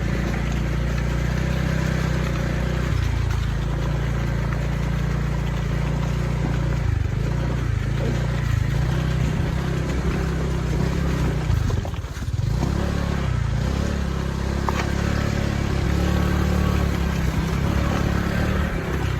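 Motorbike engine running steadily under way on a rough road, easing off briefly about twelve seconds in and then picking up again.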